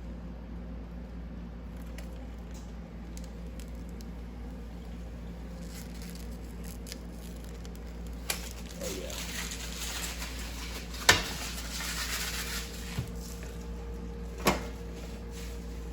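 Handling noise: rustling and crinkling, like packaging being handled, starting partway through, with a few sharp clicks or knocks, over a steady low hum.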